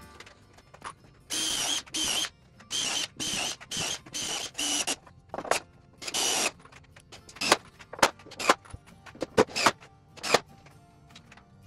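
Cordless drill driving long wood screws into pine boards, the motor running in short bursts of half a second or less, each with a high whine. Later come several sharp clicks and knocks.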